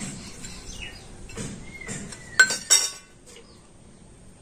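A small steel bowl clinks twice against a stone grinding slab, about two and a half seconds in, each clink ringing briefly. Before that comes soft scraping as grated coconut is pushed out of the bowl.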